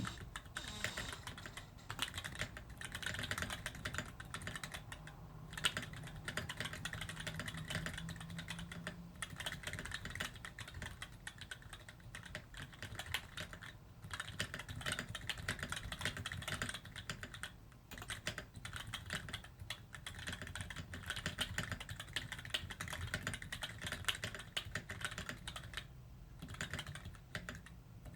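Mechanical keyboard with 62g Gateron Black linear switches being typed on steadily, a dense run of keystrokes with brief pauses.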